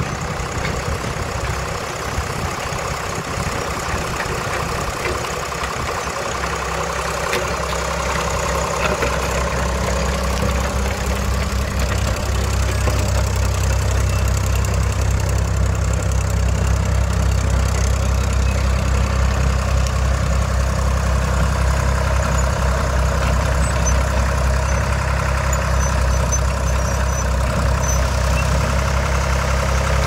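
Diesel engine of a Mauldin 1500 asphalt paver running steadily while the crawler-tracked paver drives about. It gets louder about a dozen seconds in and holds that level.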